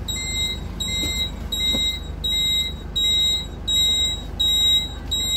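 Bus dashboard warning buzzer beeping in an even, high-pitched pattern of short beeps, about three every two seconds, over a low steady rumble.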